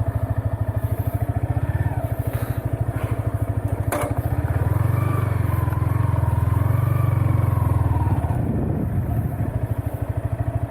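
Yamaha XSR155's single-cylinder engine running at low speed with evenly spaced pulses. It gets louder about halfway through as the throttle opens, then eases back. A single sharp click comes a little before the midpoint.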